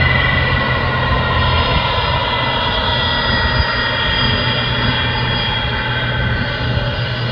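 Jet airliner engines running loud and steady, with several high whining tones that drift slowly in pitch over a low rumbling noise.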